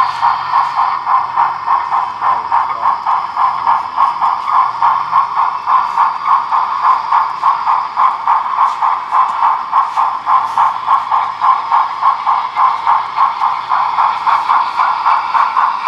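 Model steam locomotive's onboard sound giving a steady, even chuffing of about four beats a second as the engine moves slowly in reverse.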